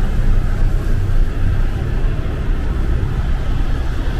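Steady low rumble of a queue of cars stuck in traffic inside a concrete parking structure.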